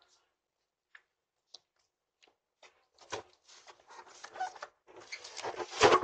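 Footsteps and rustling of a delivery driver walking up to the front door, heard through a Ring doorbell camera's microphone. Faint clicks come first, then irregular scuffs and rustles from about halfway, ending in a louder thump just before the end.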